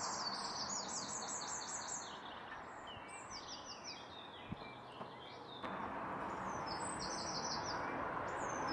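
Small birds chirping in quick runs of high notes over a steady outdoor hiss, with a couple of light clicks as wooden fruit skewers are set down on a metal grill grate.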